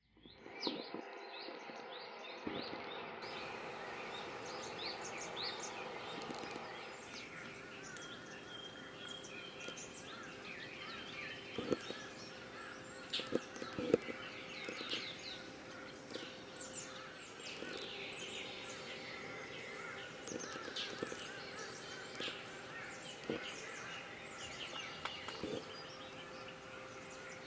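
Outdoor ambience with many birds chirping and calling, over a faint steady hum, with a few sharp knocks in the middle.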